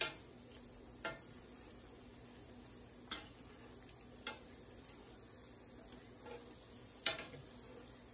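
Apple doughnut holes frying in hot oil in a metal pot, with a steady faint sizzle. Metal utensils clink sharply against the pot about five times as the doughnut holes are turned.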